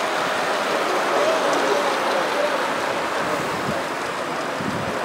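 Steady rushing noise of wind on the microphone, with faint voices now and then.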